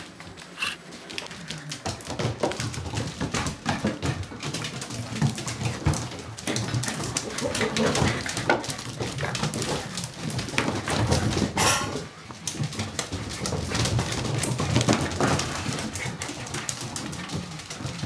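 Appenzeller Sennenhund puppies play-fighting on a laminate floor: a busy run of scuffling and clicking, mixed with short puppy growls and whines.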